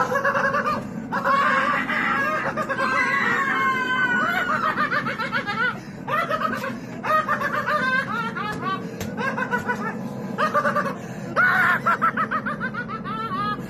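People laughing in repeated short bursts, overlapping at times, with music underneath.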